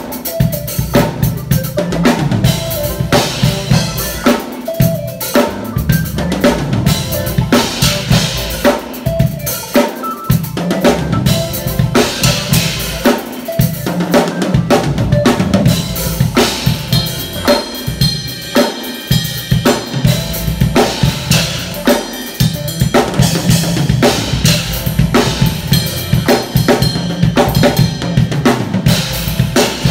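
Acoustic drum kit played in a steady groove: bass drum and snare hits driving the beat, with cymbals struck between them.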